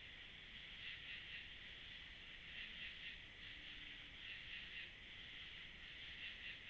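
Faint chorus of night insects: a steady, high, pulsing trill.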